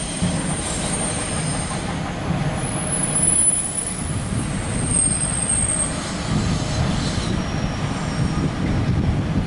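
CSX freight train's autorack and intermodal cars rolling past, a steady rumble of wheels on rail with thin, high-pitched wheel squeals that come and go.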